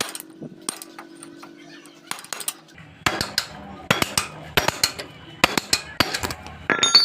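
Hammer and punch striking a motorcycle drive chain's link pin to drive it out and shorten the chain: sharp metal-on-metal knocks and clinks, a few scattered at first, then a quicker run of blows from about three seconds in.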